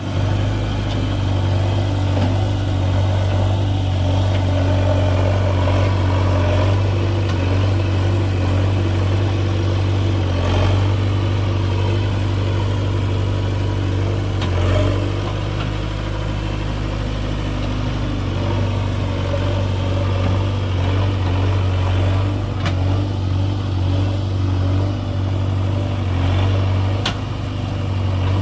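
Diesel engine of heavy machinery running steadily at a low, even pace, with a few short clanks.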